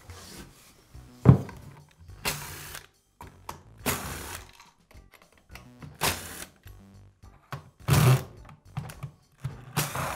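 Light background music, with a power driver whirring in short bursts as it backs out the screws holding the drywall sander's plastic motor housing together. A single thunk about a second in.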